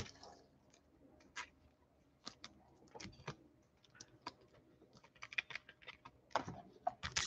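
Faint, scattered light clicks and taps of trading cards and plastic card holders being handled on a tabletop, sparse at first and coming more often in the last couple of seconds.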